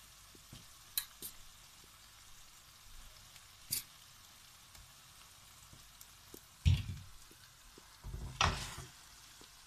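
Masala and pasta sizzling faintly in a frying pan, with a few sharp clicks of the metal strainer and wooden spoon against the pan. Near the end, louder knocks and scraping as the wooden spoon stirs the pasta into the masala.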